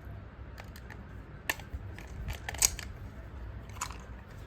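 Small scattered clicks and taps, about four, the loudest near the middle, as a toy train's battery compartment, its screw and batteries are handled.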